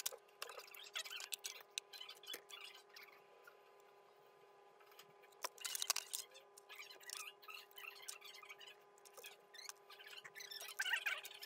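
Small objects clicking, tapping and rattling as hands rummage through a wooden drawer of odds and ends: plastic boxes, a plastic utensil tray, scissors. The handling pauses for a couple of seconds partway through, over a faint steady hum.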